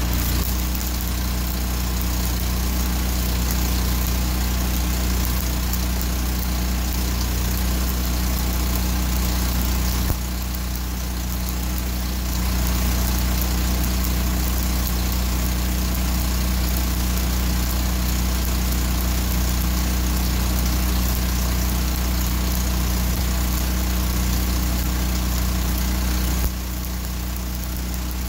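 Engine-driven stick welder running steadily under the load of the arc: a low engine hum with the crackling hiss of a stick electrode laying a bead on steel. The engine note and the hiss drop slightly about ten seconds in and again near the end.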